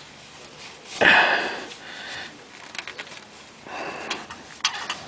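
Short noisy sniffs or breaths close to the microphone, the loudest about a second in, with a few smaller ones around four seconds in.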